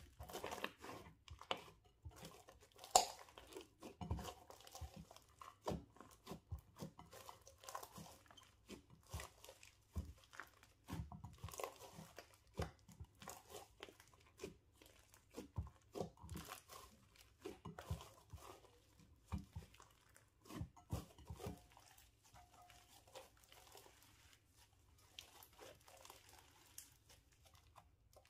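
Hands kneading and squeezing slime full of small beads: an irregular stream of wet squelches, pops and crackles, quieter over the last few seconds.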